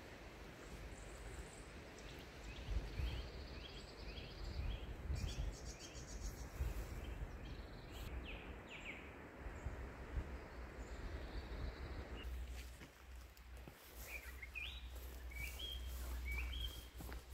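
Small birds calling over a steady low rumble of outdoor ambience: a run of about eight short, evenly repeated chirps in the first half, then a few short rising notes near the end.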